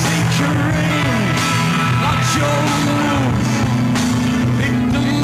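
Alternative rock band playing live: a male singer's voice gliding over electric guitar, bass and drums, loud and steady.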